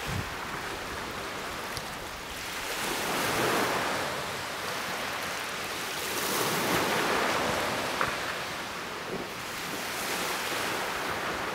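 Small waves washing onto the shore, swelling and falling back every three to four seconds, with some wind on the microphone. A single short tick comes about two-thirds of the way through.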